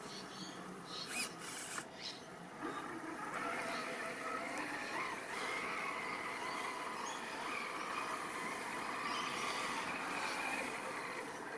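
Brushless motor and geared drivetrain of a 1/8-scale RC Land Rover Defender crawler whining as it creeps slowly across grass. The whine sets in about two and a half seconds in and holds steady with a slight rise and fall in pitch.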